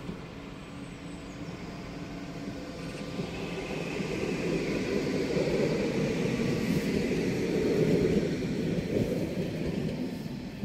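Tram passing on its track: the rumble of wheels on rails builds up, peaks a little after the middle, and fades away near the end.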